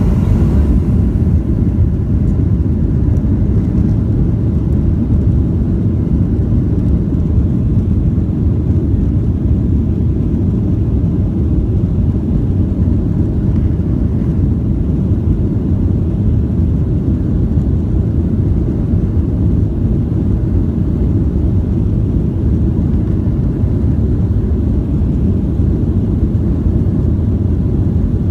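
Jet airliner heard from inside the cabin during takeoff: a loud, steady low rumble of engines and airflow.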